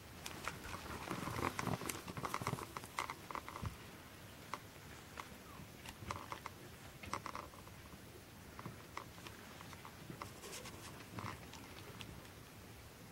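Adult Norwegian Forest Cat and kitten play-wrestling on carpet: rustling fur and paws with scattered small clicks and taps, busiest in the first few seconds and sparser after.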